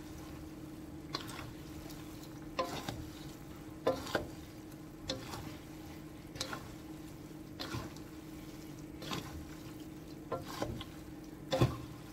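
Two wooden spatulas tossing and stirring stir-fried noodles in a wok, knocking and scraping the pan about once a second, with a light sizzle and a steady low hum underneath. The loudest knock comes near the end.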